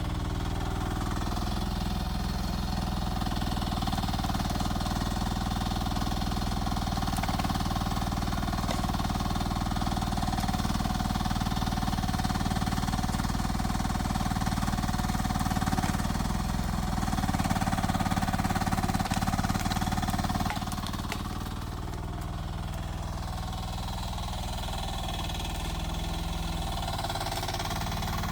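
Rippa R10 mini excavator's small engine running steadily. It gets a little louder for a few seconds about two thirds of the way through, then eases back down.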